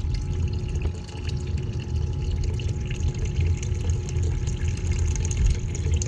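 Small pump in a bucket of vinegar running steadily, with the vinegar pouring back from the return hose and splashing into the bucket: a descaling flush circulating through a tankless water heater after priming.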